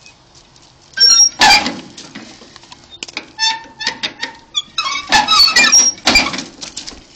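Hand crank of a John Deere 40 tractor squeaking as it is turned: a string of short, high squeaks, louder about a second in and again around five seconds. The engine does not fire.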